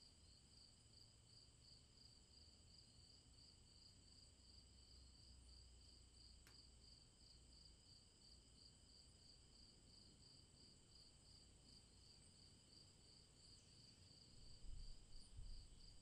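Near silence over a faint, steady, high-pitched insect trill with a fast pulsing beat. A soft low rumble rises in the last couple of seconds.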